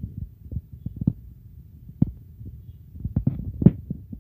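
Irregular low thumps and rumble of buffeting on the phone's microphone, with a few sharper knocks in the second half, the loudest near the end.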